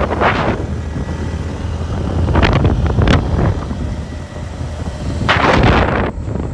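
Wind buffeting a phone microphone on a moving motorcycle, coming in rough gusts about three times over a low, steady rumble of the ride.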